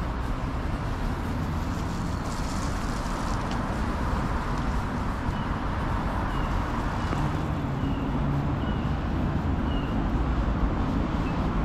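City street traffic: a steady wash of vehicles running and passing, with a low engine rumble. In the middle comes a run of short, high chirps repeating a little faster than once a second.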